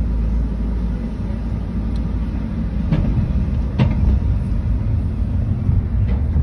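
Car driving off a ferry onto the landing, heard from inside the cabin: a steady low rumble of engine and road, with two short knocks about three to four seconds in.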